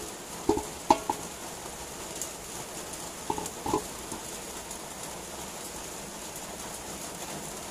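Cooking oil heating in a wok: a steady faint hiss with occasional tiny crackles. Two pairs of short, hollow knocks come through, the first starting about half a second in and the second about three and a half seconds in.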